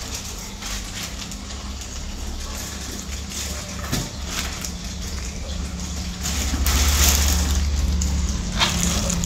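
Aquarium water bubbling and splashing over a steady low hum of tank pumps. The water noise grows louder for about two seconds, about six seconds in.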